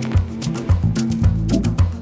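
Background music with a steady drum beat, bass and plucked melody notes.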